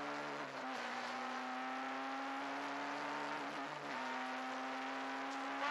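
Opel Corsa Kit rally car's engine under load, heard from inside the cabin, its note held and slowly rising in pitch. The note briefly drops out about three and a half seconds in, then picks up again.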